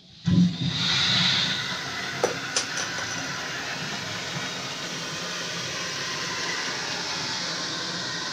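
Delany flushometer toilet flushing: water rushing through the valve into the bowl, starting suddenly a moment in and running steadily, with a few light clicks about two to three seconds in. The valve has just been rebuilt with a new diaphragm.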